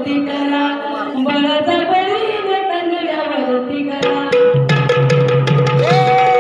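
Folk dance music in the tura style: a sung melody over hand-drum percussion. About four seconds in it changes sharply to a long held note over steady drumming with sharp strikes.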